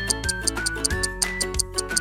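Upbeat children's background music: a simple stepping synth melody over a steady bass, with a quick, even ticking beat.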